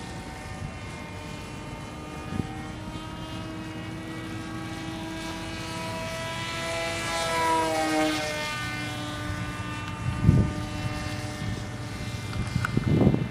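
Motor whine of a homemade radio-controlled F-22 model jet in flight. The pitch and loudness climb about six to eight seconds in, then the pitch drops away. A few low thumps come near the end.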